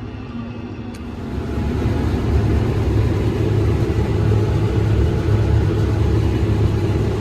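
Combine harvester running while cutting corn: a steady low engine hum with machinery noise, which turns fuller and clearly louder about a second in.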